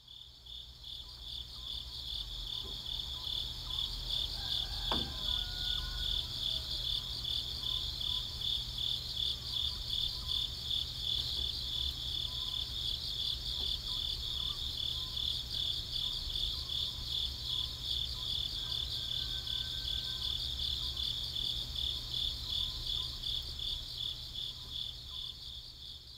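A chorus of chirping insects in a rapid, steady pulse, fading in over the first few seconds and fading out at the end, over a low steady rumble.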